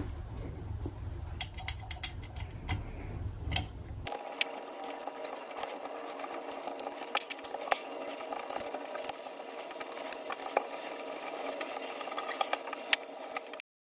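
Light metallic clicks and scrapes of a small hex key and screws being worked out of a scooter hub motor's brake disc, over a steady hum. The hum changes suddenly about four seconds in, and the sound cuts off just before the end.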